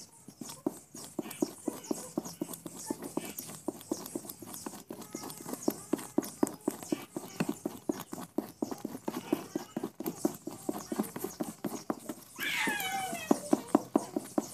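Rapid, regular knocking, about five knocks a second, with one brief falling whistle-like call about twelve seconds in.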